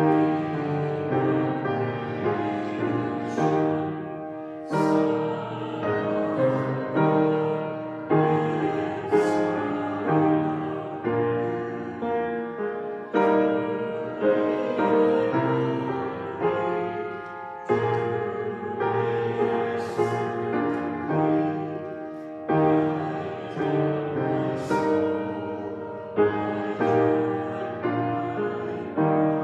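Piano playing a hymn tune in slow, full chords, each chord struck and fading before the next.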